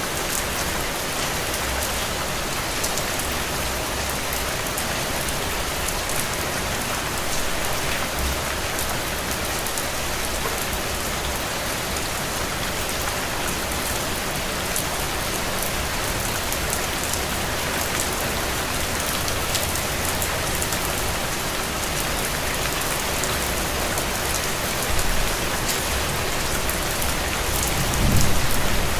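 Steady rain falling on a window, with many fine drop ticks. A low rumble swells near the end.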